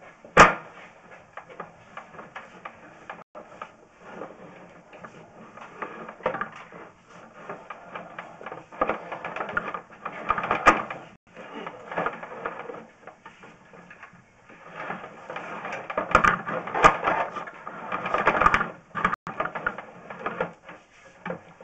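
Sewer inspection camera's push-rod cable being fed by hand down the line, rattling and scraping in irregular bursts. There is a sharp click about half a second in.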